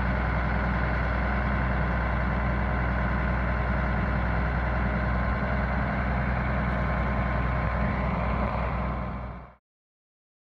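Mercedes-Benz Unimog U2150L truck's diesel engine running steadily at idle, with a deep, even hum. The sound fades and cuts off to silence about nine and a half seconds in.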